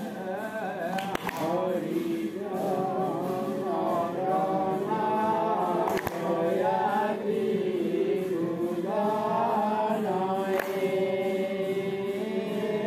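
Prasanga, the Assamese Vaishnavite congregational devotional singing, with several voices singing a slow, drawn-out chant together. A few sharp clicks stand out about every four to five seconds.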